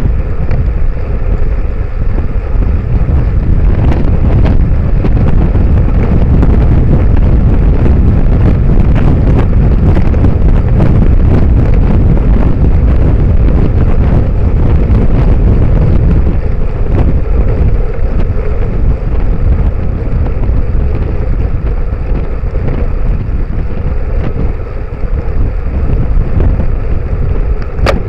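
Steady, loud wind rush on the microphone of a bicycle-mounted camera while riding at speed on a tarmac road, with a single short click near the end.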